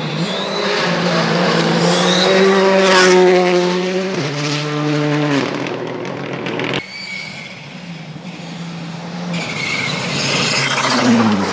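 Rally cars passing at speed on a gravel stage, engines at high revs with gravel and tyre noise. The first engine note holds high, breaks about four seconds in and then falls away; the sound cuts off abruptly about seven seconds in, and near the end another car comes through loudly, its note dropping in pitch as it passes.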